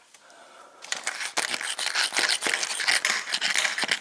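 Rapid scratching and rustling of hands working in and around a bicycle's bottom bracket shell, starting about a second in.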